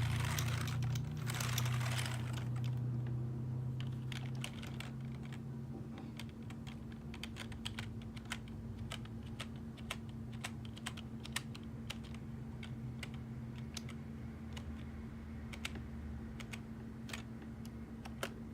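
Typing on a computer keyboard: a quick, irregular run of sharp key clicks over a steady low hum.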